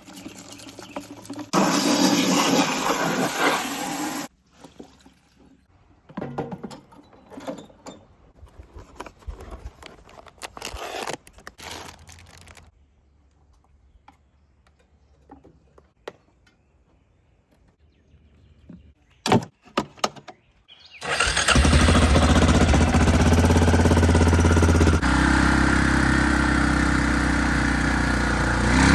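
A 2005 Arctic Cat 400 ATV's engine starts about three-quarters of the way in and keeps running steadily. Before that there are a few seconds of loud rushing noise, then a quiet stretch with scattered clicks and knocks.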